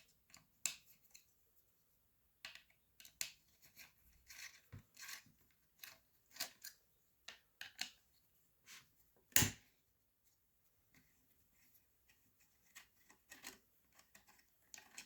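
Small clicks, taps and scrapes of metal tools and parts being handled, with one louder knock about nine seconds in.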